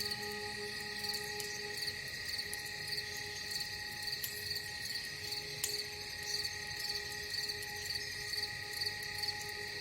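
Crickets chirping in a steady repeated pulse, a few chirps a second, over a continuous steady hum of held tones.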